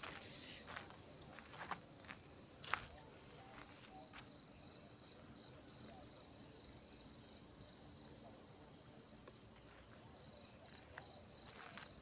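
Steady high-pitched chirring of insects. Footsteps on dirt ground sound a few times in the first seconds and again near the end.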